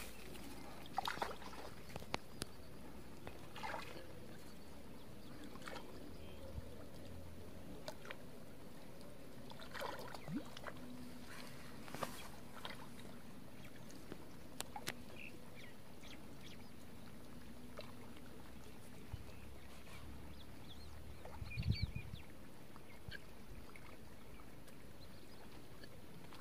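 Faint quiet ambience at the edge of a shallow pond, with scattered small water splashes and ticks from a person wading with a fishing rod, and one brief low thump near the end.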